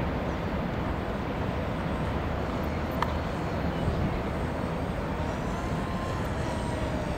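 Distant electric motor and propeller of an Art-tech Coota RC model seaplane in flight: a faint thin whine rising then falling in pitch as it passes, over steady background noise, with a single click about three seconds in.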